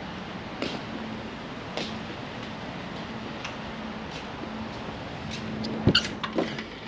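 Footsteps on a concrete walkway, a few soft taps spaced about a second apart, then a metal-framed glass entrance door pushed open about six seconds in: a loud clack of the push bar and latch followed by a couple of knocks as it swings. A steady hiss and low hum lie underneath.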